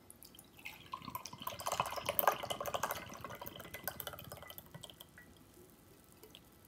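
Black coffee poured from a drink can into a glass tumbler: a fast, gurgling splash that builds over the first couple of seconds, then thins to a trickle and stops about five seconds in.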